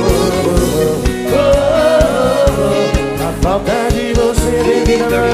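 Live sertanejo music: a band playing over a steady drum beat, with a sung melody of held and sliding notes.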